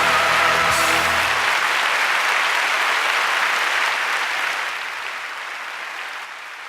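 Congregation applauding as a sung, wavering note and the accompanying music end in the first second or so. The clapping then carries on alone and slowly fades.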